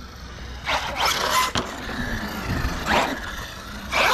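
Arrma Kraton EXB RC monster truck on 6S LiPo power, its 1650 kV brushless motor whining up in pitch in three short throttle bursts, with tyre noise on concrete.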